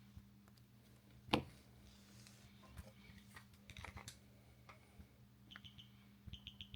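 Small plastic clicks and taps from a Hyundai remote key fob's case being handled during a battery change, with one sharper click about a second in and quick runs of light ticks near the end.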